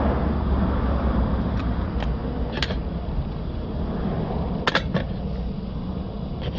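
Plastic door trim panel being lifted off the door and handled, giving a handful of short sharp plastic clicks and taps, the loudest a double click a little past the middle, over a steady low rumble.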